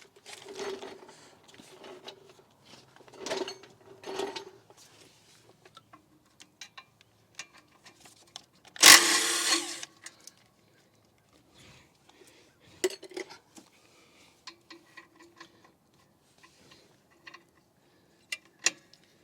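Hand-tool work on a brake assembly: scattered metal scraping, rubbing and clinks, with one loud, harsh burst lasting about a second near the middle.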